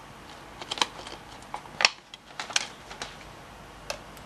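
Scattered sharp plastic clicks and snaps as Blu-ray discs are popped off the centre hubs of their case and handled, with about five distinct clicks. The loudest comes about two seconds in.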